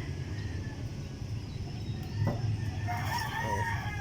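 Steady low outdoor rumble with faint bird calls near the end and a single click about two seconds in.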